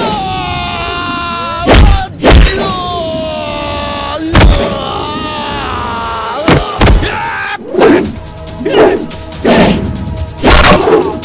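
Action-film fight soundtrack: dramatic background music with loud punch and impact sound effects. There are a few scattered hits in the first seven seconds, then a quick run of blows about every half second near the end.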